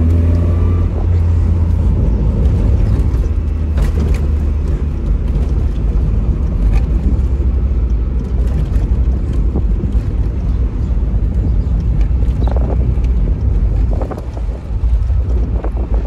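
Tofaş Doğan SLX's four-cylinder engine running under way, heard from inside the cabin as a steady low drone with road noise over it. It eases off briefly about two seconds before the end.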